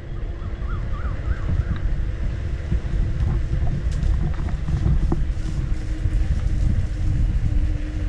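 Wind rumbling on the microphone while riding an electric unicycle, under a steady whine from the unicycle's hub motor. A bird chirps four or five times in the first two seconds.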